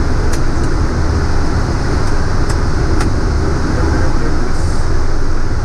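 Steady cockpit noise of a Boeing 737: a constant low rumble with a hiss of airflow over it, with a few faint clicks.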